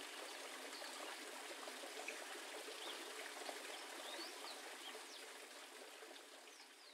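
Water trickling and splashing steadily, like a small stream or pond waterfall, with scattered faint short bird chirps; it fades out toward the end.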